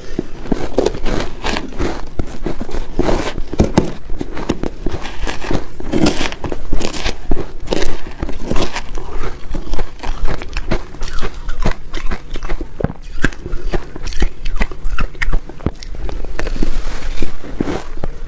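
Close-miked crunching and chewing of a mouthful of shaved ice coated in matcha powder, a dense run of crackling crunches, with the metal spoon scooping ice in the plastic bowl.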